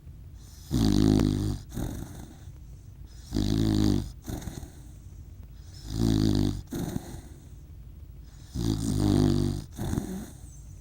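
A sleeping person snoring: four loud snores, each about a second long and roughly two and a half seconds apart, with quieter breathing between.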